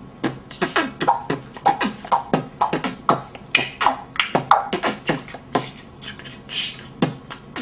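Parrot beatboxing: a rhythmic run of sharp clicks and pops, several a second, with short falling squeaks mixed in.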